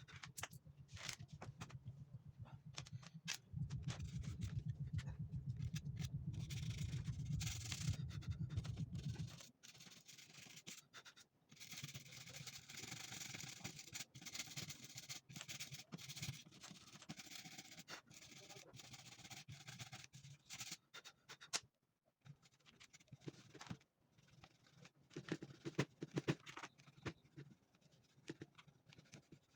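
A computer keyboard being cleaned by hand: a cloth and pen scraping and rubbing over the keys, with many scattered clicks of keys knocked or pressed. A low hum runs under it for the first nine seconds or so, then stops.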